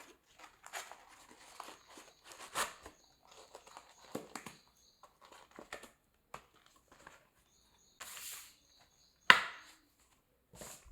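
Rustling and crinkling from a car duster and its packaging being handled, with scattered small clicks and one sharp knock about nine seconds in.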